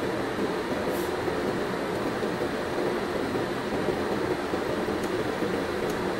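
Steady whirring hum of equipment fans, with a few faint ticks.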